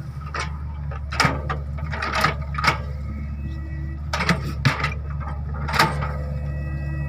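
Excavator diesel engine running steadily, with a string of sharp metallic clanks, about eight spread irregularly through the few seconds, from the working machine.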